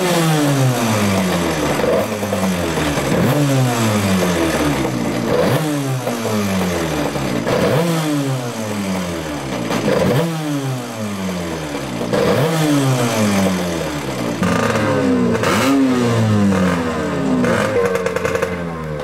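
Racing hydroplane's engine running on the pontoon and revved again and again: each rev jumps up and falls away, about once a second. Near the end it holds a steadier, higher note.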